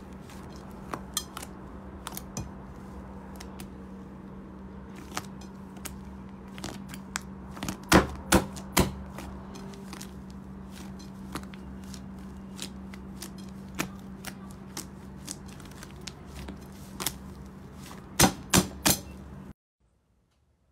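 Thick, puffy slime squeezed and kneaded by hand, giving small clicks and pops, with three louder pops a little before halfway and three more near the end, over a steady low hum. The sound cuts out about a second before the end.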